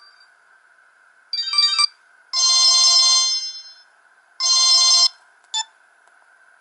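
Samsung GT-E2100 mobile phone playing an electronic ringtone through its small speaker: a short run of quick notes, then a long chord that fades away, a shorter chord, and a brief blip near the end.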